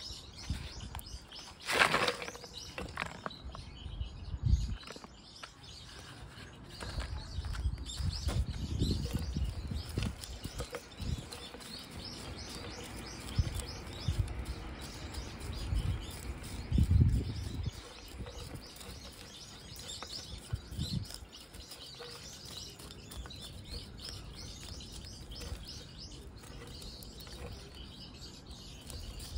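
A root hook scratching and raking through a pine's root ball and potting soil, with soil crumbling, rustling and occasional low bumps from handling; small birds chirp in the background.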